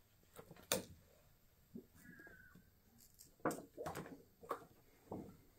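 Faint, scattered handling noises: soft taps and crinkles of thin plastic screen-protector sheets and their packaging being picked up and moved, with a small cluster of them about three and a half to four and a half seconds in.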